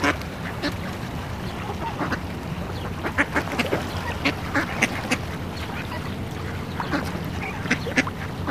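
A flock of waterfowl calling, many short quacking calls in quick succession, busiest about halfway through and again near the end, over a steady low background noise.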